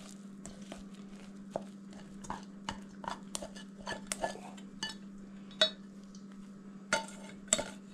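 A utensil scraping cooked rice out of a pot into a bowl: repeated clinks and scrapes against the pot, the sharpest a little past the middle and twice near the end. A steady low hum runs underneath.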